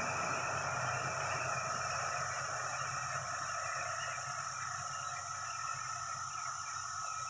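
Air-atomizing RA-C1 spray gun on a BYC-600 tablet coating machine hissing steadily as compressed air blows out a fine mist, with a low steady hum underneath.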